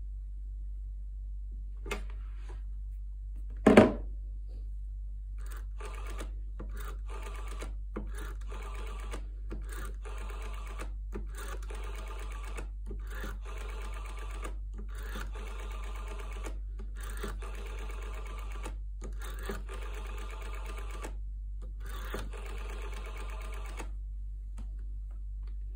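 Black Japanese rotary-dial telephone: a loud clunk about four seconds in as the handset comes off its cradle, then the dial is turned and let go again and again, each return a whirring, clicking buzz of one to two seconds, with short pauses between digits for about twenty seconds.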